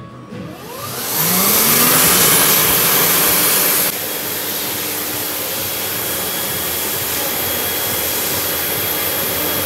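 Slot-type electric hand dryer starting up with a rising whine, then blowing a loud, steady rush of air. About four seconds in the sound drops a little and a steady rush carries on.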